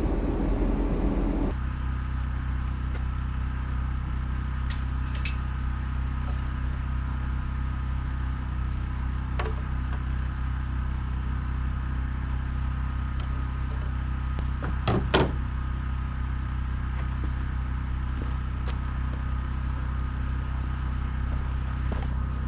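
A machine running steadily with a low, even hum, with a few faint clicks and a brief knock about fifteen seconds in.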